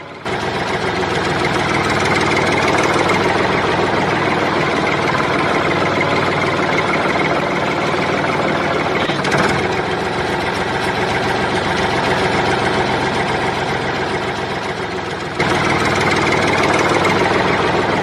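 Engine running steadily at idle, cutting in sharply at the start and again about fifteen seconds in.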